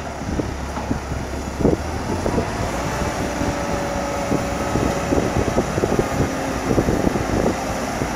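New Holland LM7.42 telehandler's 145 hp diesel engine running while the boom is lowered, with a steady hydraulic whine joining about three seconds in.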